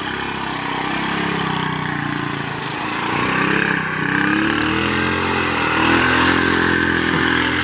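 Honda CD-70's small single-cylinder four-stroke engine revving up and down, its pitch rising and falling several times, as the motorcycle is spun in tight circles on loose dirt.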